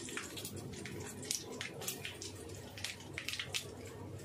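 Hot oil sizzling in a kadhai with mustard seeds, curry leaves and freshly added turmeric, the tempering stage of sambar. A steady hiss with irregular sharp crackles and pops, several a second.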